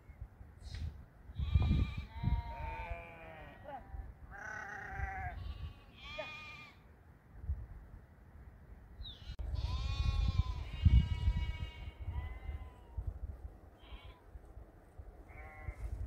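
Several sheep bleating, one call after another and sometimes overlapping, each a wavering call of about half a second to two seconds, the longest and loudest about ten seconds in. Low rumbling noise sits under some of the calls.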